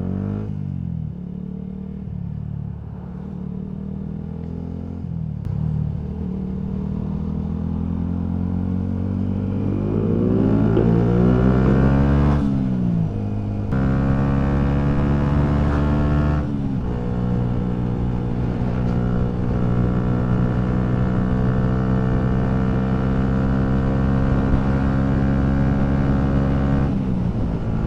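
Single-cylinder engine of a Yamaha MT-125 motorcycle with a full aftermarket exhaust, running under way. It rises in pitch as it accelerates about ten seconds in, drops at gear changes around thirteen and sixteen seconds, then holds a steady note and falls away near the end.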